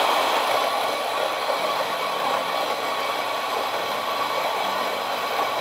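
La Cimbali G50 espresso grinder running steadily as its motor turns the burrs, grinding coffee beans into a portafilter.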